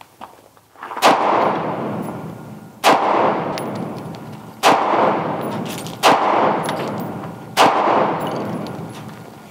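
Five shots from an unsuppressed 16-inch AR-15 in 5.56 fitted with a muzzle brake, fired one at a time about a second and a half to two seconds apart. Each sharp report is followed by a long echo that fades over more than a second.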